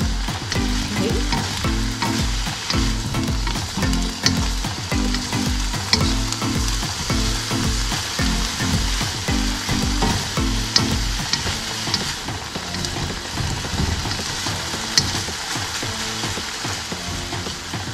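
Ground pork and chopped carrots sizzling steadily in a nonstick wok as they are stirred and scraped with a wooden spatula and a silicone spatula. Sharp clicks of the utensils against the pan come now and then.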